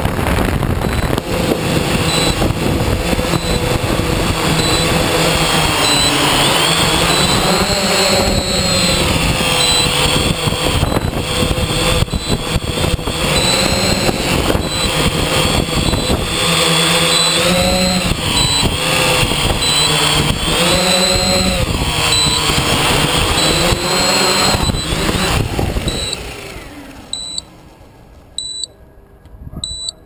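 Octocopter's electric motors and propellers running loud, their pitch rising and falling as the craft comes down and lands, then spinning down near the end. A short high electronic beep then repeats every second or so.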